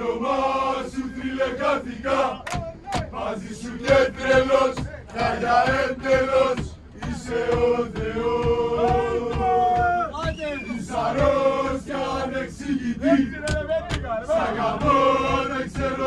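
A group of male football supporters chanting in unison inside a crowded bus, with sharp beats in time with the chant.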